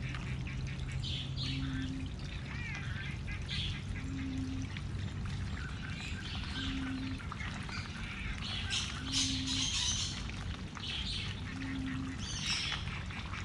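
Birds in a duck enclosure giving scattered short calls, chirps and squawks, busiest in the second half. Under them runs a steady low hum of water or equipment, and a short low tone repeats about every two and a half seconds.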